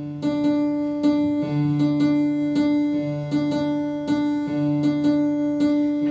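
Electric keyboard playing the opening of an Indian devotional bhajan: chords struck about twice a second over a held drone note, with the bass note changing every second or so.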